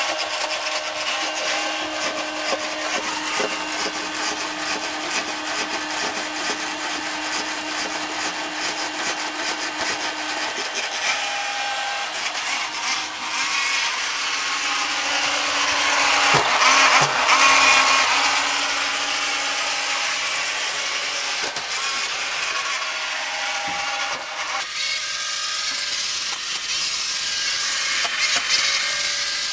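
CCP Laqulito CZ-860-RB robot vacuum cleaner running: a steady whir from its motors with its brushes scraping and rubbing, several tones shifting as it moves. The sound swells for a couple of seconds a little past the middle, with a few knocks, and its tone changes near the end.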